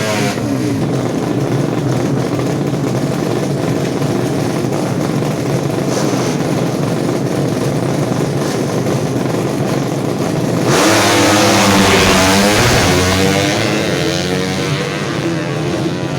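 Drag-race motorcycle engines revving hard at high pitch. About eleven seconds in, a bike passes close: it is loudest there, its pitch sweeps as it goes by, then it fades.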